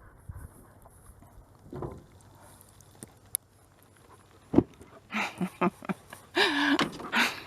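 A dog whining and yipping in short bursts, with a longer bending whine, over the last couple of seconds, after a few quiet seconds with a couple of soft thumps.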